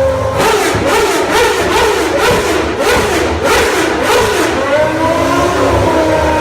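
Toyota TS010's 3.5-litre V10 racing engine blipped hard in quick surges, about two to three a second, then its revs rise and hold steady near the end.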